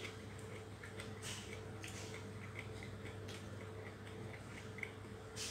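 Faint eating sounds of a person eating rice and greens by hand: small mouth clicks and chewing ticks a few times a second, over a steady low electrical hum.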